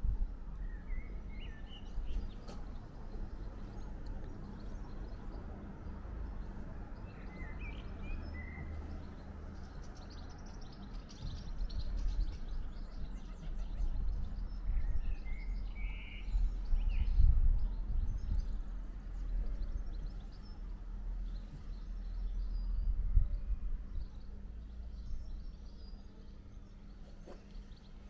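Outdoor ambience: a steady low rumble that swells now and then, with a few faint bird chirps scattered through it.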